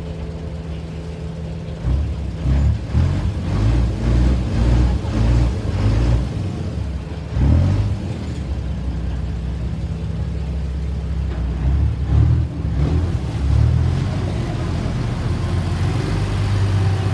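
A small river passenger ferry's engine running steadily, with irregular gusts of wind buffeting the microphone through the middle of the crossing. Near the end the engine settles into a different steady note as the boat comes alongside the pier.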